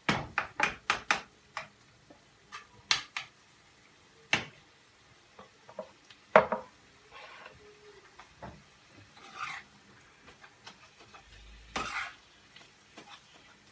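A spoon stirring and breaking up minced meat in a metal pot, knocking and scraping against the pot in a quick run of clicks at the start, then single knocks now and then. The loudest knock comes about six and a half seconds in.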